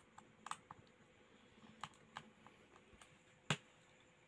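Faint, scattered clicks and taps of a small screwdriver and plastic parts as a smartphone is taken apart, with one sharper click about three and a half seconds in.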